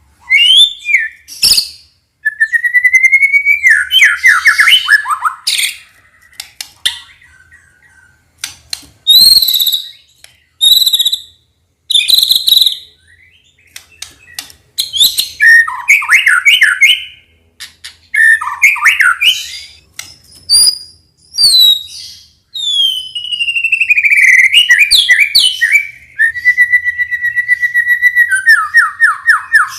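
White-rumped shama (murai batu) singing a varied song of loud whistled phrases, gliding notes and trills with short pauses between them, ending in a fast run of repeated notes.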